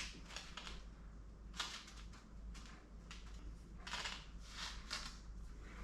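A spoon scraping sticky oatmeal cookie dough off onto parchment paper: a series of faint, short scrapes and rustles, a few to a second.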